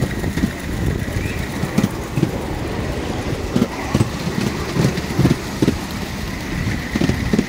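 Miniature railway train running past: engine noise with a run of irregular low knocks from the wheels on the track.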